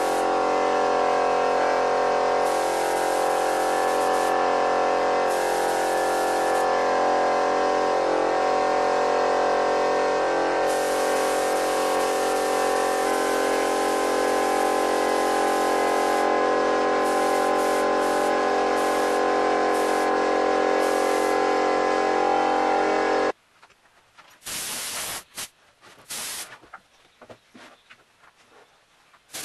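Handheld electric paint sprayer running steadily with a motor whine while spraying finish onto a wooden tabletop, then cutting off abruptly. A few short rubbing strokes of sanding on wood follow near the end.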